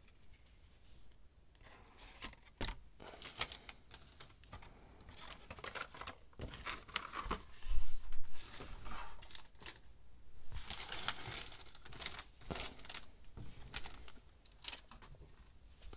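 Hands handling a stack of Magic cards and crinkling empty foil booster-pack wrappers: irregular rustling, taps and crinkles, loudest about eight seconds in and again around eleven seconds.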